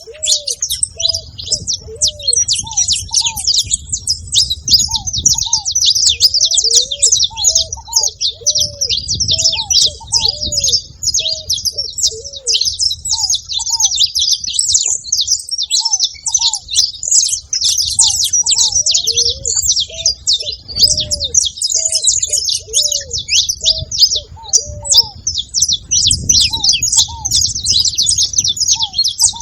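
Saffron finches chirping and twittering in a dense, unbroken chatter of fast high notes. Underneath, a lower call of short arching notes repeats on and off.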